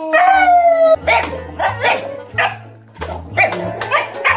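A dog howling, one long falling note that ends about a second in. Then electronic keyboard music with a steady bass line, with a dog's short barks and yips over it.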